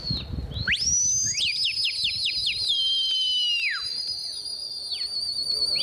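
Several people whistling loudly at once. There are short high whistles, then from about a second in a tangle of rising and falling glides and a warbling trill, with one long held note that carries on. This is pigeon fanciers' whistling to the flock circling overhead.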